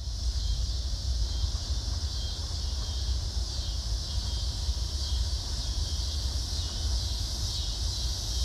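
A steady high-pitched insect chorus over a low rumble, outdoors on grass.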